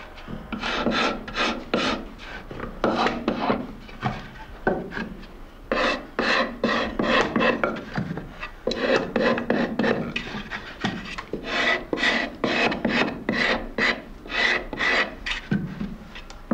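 Scraping knife (Schrappmesser) shaving the outside of a poplar-wood clog in quick repeated strokes, about two to three a second, with a short pause about four seconds in.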